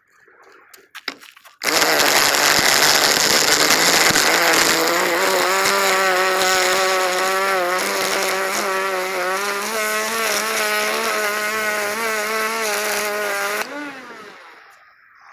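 String trimmer (weed eater) engine running steadily, its pitch wavering a little. It starts suddenly after a few faint clicks, about a second and a half in, and cuts off sharply near the end.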